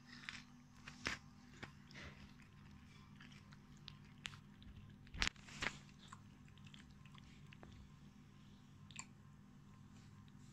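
A cat chewing chunks of cooked meat from a plastic dish: faint, irregular chewing and smacking clicks, with two louder sharp knocks about five seconds in.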